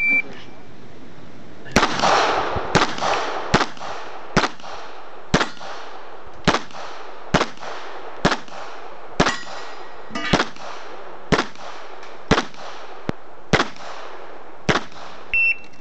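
A string of 9 mm pistol shots from a CZ 75 SP-01 Shadow, about one a second after a pause of over a second near the start, with steel targets briefly clanging when hit.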